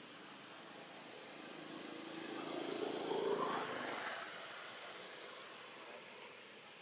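A motor vehicle passing by: its engine and tyre noise grow louder to a peak about three seconds in, then fade away.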